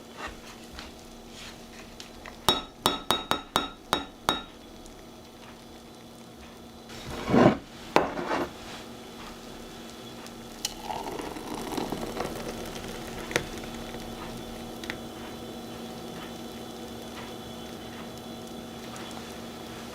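Kitchen handling sounds: a quick run of about eight ringing clinks, like a utensil tapping a dish, then a louder swish. After that comes a steady faint background with a few small ticks.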